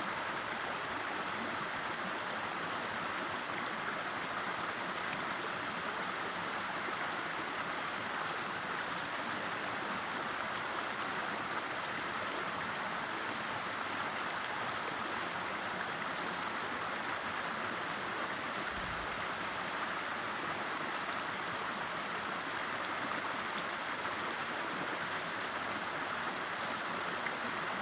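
River water flowing, a steady, even rushing sound.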